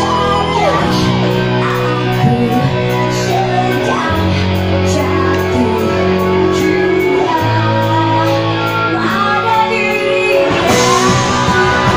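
Live rock band: a woman singing over electric guitars, bass guitar and a drum kit. Near the end the drumming gets busier and the sound fuller.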